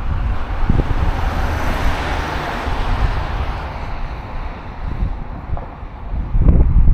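Wind buffeting the microphone in gusts, with one stronger gust near the end. Early on a vehicle passes on the road, its tyre hiss swelling and then fading over a few seconds.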